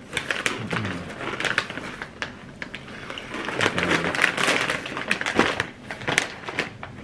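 Crinkly plastic snack bags crackling and rustling as they are handled, one a bag of dried squid being reached into.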